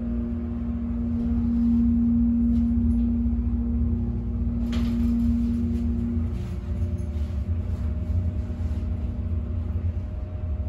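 Elevator car travelling upward: a steady low rumble with a strong humming tone from the drive, the hum fading about six seconds in. A single sharp click a little before that.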